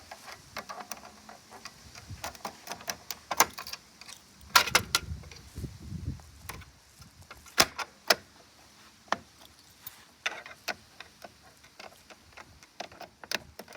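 A bunch of keys being handled, jangling with an irregular run of sharp clicks and clacks.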